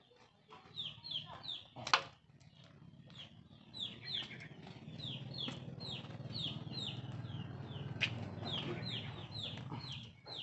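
Chickens peeping: repeated short falling calls, several a second, with a sharp click about two seconds in and a low rumble through the second half.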